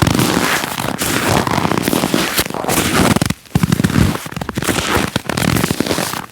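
Footsteps crunching and creaking in snow, a dense crackle that comes in surges with one clear pause about three and a half seconds in.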